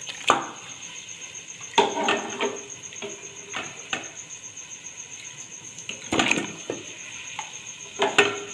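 Boiled beef trotter pieces dropped one at a time into a large metal pot of hot ghee and yogurt masala. Each lands with a splash and clatter against the pot, several times a second or two apart, over a faint sizzle.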